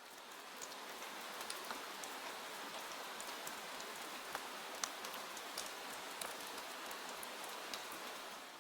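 Soft rain: a steady patter with scattered sharper drop ticks, fading out near the end.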